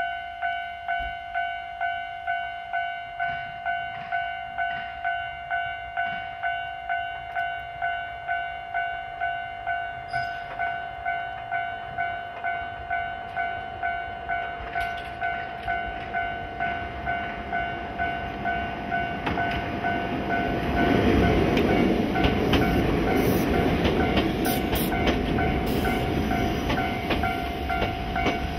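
Railway level-crossing warning bell ringing in a steady repeated strike, a little under two strikes a second. From about twenty seconds in, a stainless-steel electric commuter train rolls in, its wheels rumbling and clacking on the rails and growing louder than the bell.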